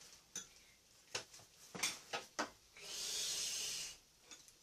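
Close-up eating sounds: a string of short wet mouth clicks and smacks while chewing a pork-belly lettuce wrap, followed about three seconds in by a hiss lasting about a second.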